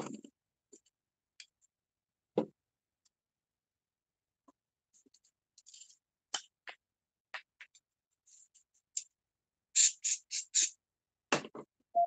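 Scattered light clicks and taps of objects being handled on a workbench, with a knock about two seconds in, a quick run of four sharp rustles near the end, and another knock just after them.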